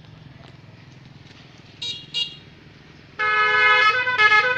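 Telolet multi-tone melody horn with snail-shaped trumpets: two short toots about two seconds in, then, from about three seconds in, a loud run of chords that change pitch like a tune. A low steady hum sits underneath.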